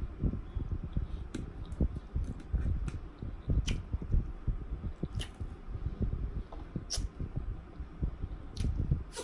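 Chewing a mouthful of fried fish and salad, with a few sharp clicks between bites.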